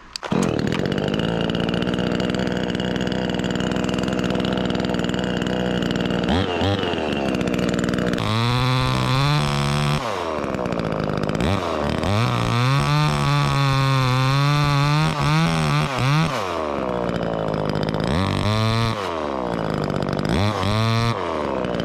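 Chainsaw running at high revs, cutting the face notch in a tulip tree branch. From about six seconds in the engine note dips and climbs back several times as the chain loads up in the wood and is eased off.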